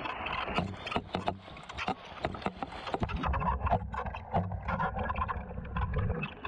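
Mountain bike coasting downhill on a rough forest road, heard from a fork-mounted camera: tyre noise and a quick run of sharp rattles and knocks as the bike goes over bumps. A low rumble comes in about halfway through.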